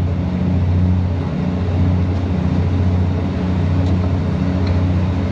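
Diesel engine of a KiHa 85 series railcar on the Nanki limited express running with a steady low hum under a general rumble.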